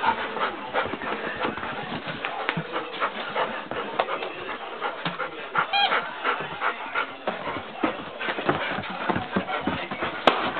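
Several dogs, golden retrievers among them, scuffling and jostling at play, a dense patter of small knocks and rustles, with a short high whine about six seconds in and a sharp click near the end.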